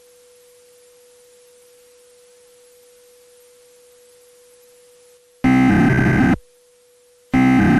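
Emergency Alert System header data bursts: after a faint steady tone with hiss, a loud, harsh electronic burst lasting about a second sounds about five seconds in, and a second one starts about a second after it ends, near the end. These repeated bursts are the coded header that opens an EAS test.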